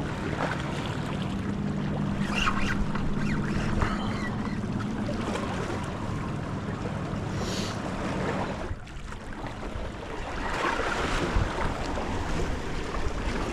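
Boat engine droning low and steady over wind and waves at the water's edge. The engine hum drops away about nine seconds in, leaving wind and water noise.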